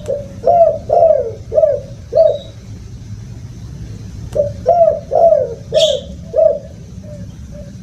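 Spotted dove cooing in two phrases of four or five low notes each, a few seconds apart. A short high chirp from another bird comes during the second phrase.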